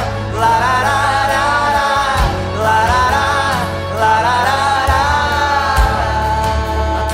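Christian worship music: a band with a steady bass underneath and a melody line that rises and falls in phrases of about two seconds, with no lyrics sung.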